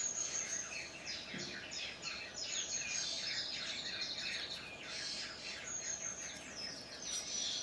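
Birds chirping and singing: many quick repeated chirps, with a brief buzzy trill about three seconds in.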